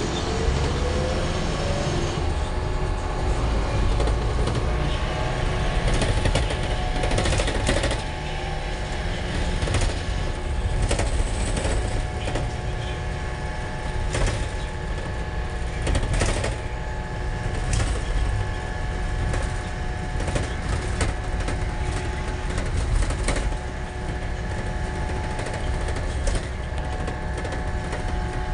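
Ride noise inside an Isuzu Almazora minibus on the move: a steady engine and road rumble with frequent clicking rattles from the body and fittings.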